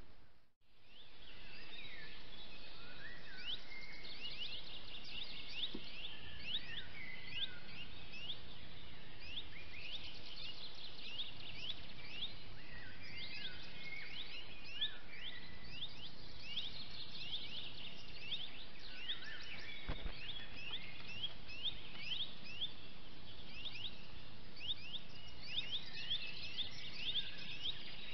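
Many small birds chirping and singing, short quick high calls overlapping densely, over the steady hiss of a trail camera's microphone. A brief gap at the very start.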